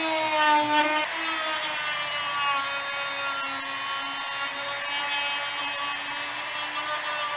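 Rotary tool fitted with a sanding attachment, its motor whining at high speed as it sands plastic, with a rough rasping under the whine. The pitch drops a little about a second in as the tool takes load against the material.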